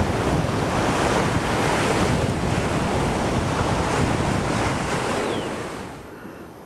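Steady rushing of wind on the microphone mixed with ocean surf. It falls away sharply about six seconds in.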